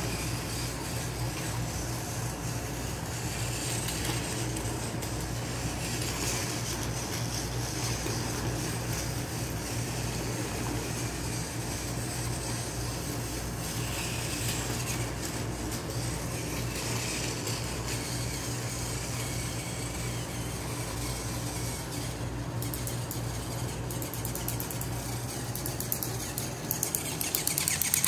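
Battery-powered toy train engines running on plastic track with a steady motor whir. A run of clicks and rattles comes near the end.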